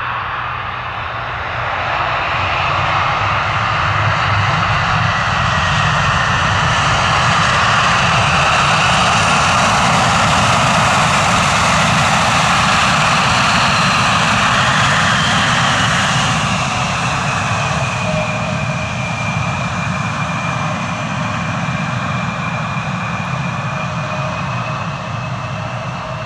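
Boeing 767-300ER's twin turbofan engines running as the airliner passes close by on the ground: a steady jet rumble and fan whine that build to a peak and then ease off. The whine drops in pitch as it goes by.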